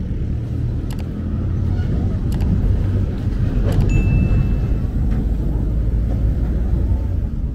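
Steady low rumble of a motor vehicle running close by, with a few short clicks and a brief high beep about halfway through.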